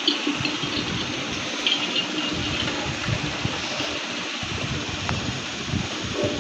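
Space sounds of the kind made by turning spacecraft radio and plasma-wave recordings into audio: a steady rushing hiss with a crackling, fluttering low rumble and brief high chirps at the start and again around two seconds in.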